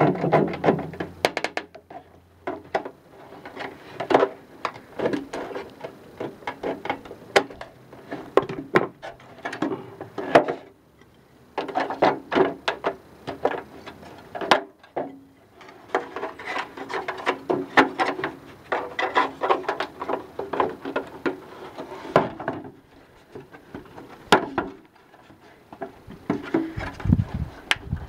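Tin snips cutting a downspout hole in a metal rain gutter: runs of sharp crunching clicks with short pauses. Later come knocks and light metal rattles as the metal downspout outlet is fitted into the hole and the gutter is handled on a wooden deck.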